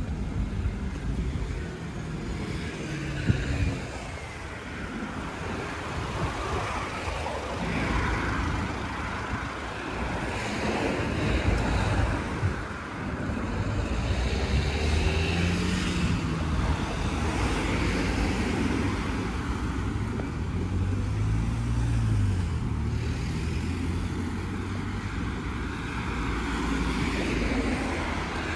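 Street traffic: cars driving past on the road alongside, their tyre and engine noise swelling and fading several times over a steady traffic hum.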